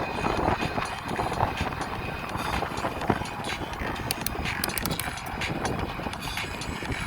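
Riding noise from a moving bicycle: a steady rumble of tyres on the path and wind on the microphone, with scattered clicks and rattles, a cluster of sharper clicks in the middle.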